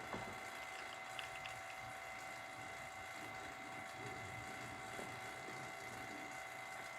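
A/C vacuum pump running steadily and faintly, drawing the system down to a deep vacuum, with a few small clicks in the first second and a half.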